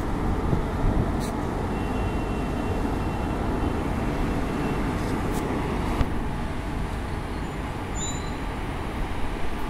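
Indian Railways WAP-4 electric locomotive rolling slowly along the platform while shunting: a steady low rumble with a few sharp clicks.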